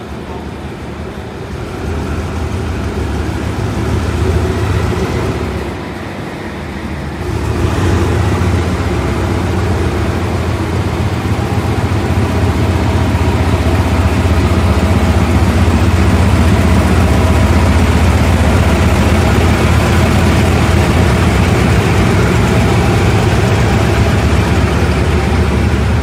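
State Railway of Thailand diesel locomotive's engine running deep and loud as it hauls a passenger train out of the platform. The sound builds over the first few seconds, dips briefly about six seconds in, then holds steady and loud.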